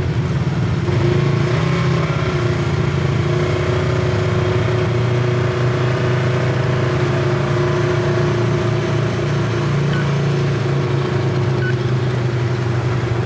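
Side-by-side UTV engine running steadily while the machine is driven at an even pace, a constant drone that barely changes pitch.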